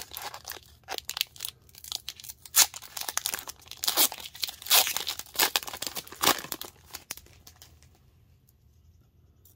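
A hockey trading-card pack's wrapper being torn open and crinkled by hand: a quick run of sharp rips and crackles that dies down about seven seconds in.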